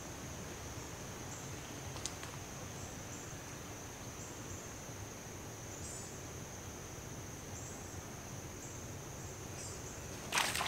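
Steady high-pitched chorus of insects over a low outdoor hiss. There is a single faint click about two seconds in and a short burst of noise right at the end.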